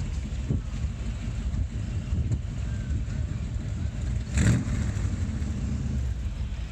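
An engine running nearby, a low rumble, with one brief loud burst about four and a half seconds in.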